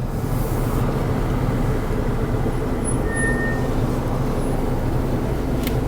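Steady hum of a car's engine and road noise, heard from inside the cabin.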